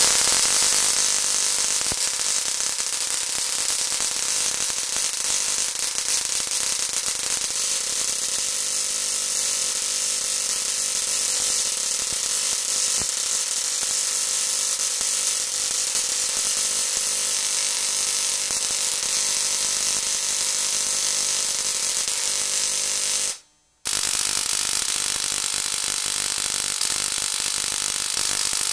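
Small spark-gap Tesla coil powered by an oil burner ignition transformer, running with a steady harsh buzz and sizzle of its roughly 8 cm sparks. It cuts out briefly about 23 seconds in and then runs again.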